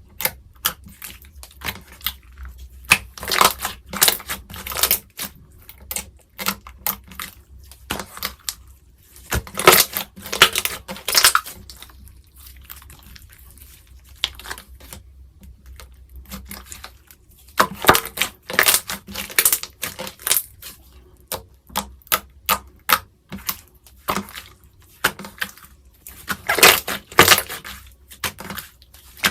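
Slime being squished and pressed by hand, giving runs of sharp clicking and popping sounds in bursts of a second or two with short pauses between.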